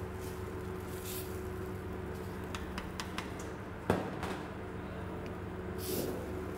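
Spoon stirring a thick cream sauce in a stainless steel pan, with a few light clicks and one sharp knock of the spoon against the pan about four seconds in, over a steady low hum.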